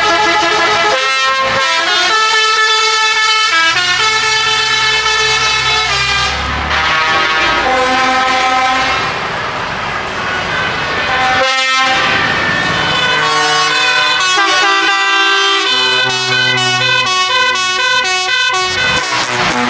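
Truck air horns honking over and over, several horn tones sounding together and changing pitch in steps, over the trucks' engines.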